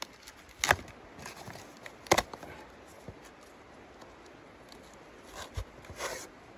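Cardboard being torn by hand into pieces for stove kindling: two loud, sharp rips, one under a second in and one about two seconds in, then quieter rustling, a soft thump and a longer rip near the end.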